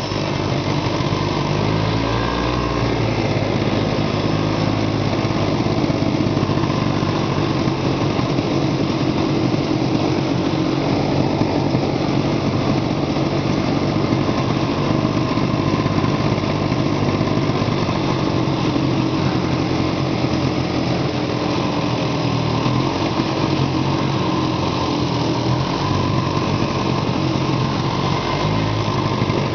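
Arctic Cat Panther snowmobile engine running while the sled is ridden, its pitch rising and falling gently with the throttle.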